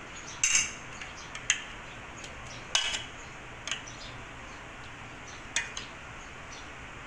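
A steel spoon clinking against a metal mixing bowl as spoonfuls of yogurt are scooped and knocked off into it: about five sharp, irregular clinks with a short ring.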